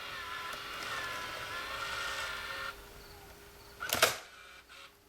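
Small motor whirring in a VHS-C camcorder's tape mechanism for about two and a half seconds, as the tape unloads for eject. About four seconds in comes one sharp clack as the cassette holder pops out.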